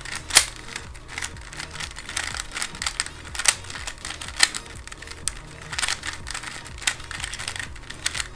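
Stickerless Rubik's cube being twisted by hand: an irregular run of plastic clicks and clacks as its layers turn, with a few sharper snaps.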